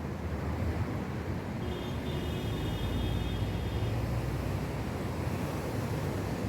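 Steady low outdoor rumble, like distant traffic or wind on the microphone, with a faint high thin tone lasting about two seconds near the start.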